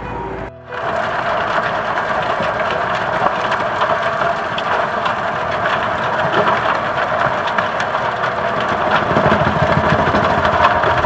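A John Deere 6145R tractor's six-cylinder diesel pulling a tractor-mounted implement with a toothed packer roller through freshly cleared, rooty forest soil: a steady mechanical rumble with many small ticks and crackles, growing slightly louder toward the end. A moment of music comes first, cut off abruptly.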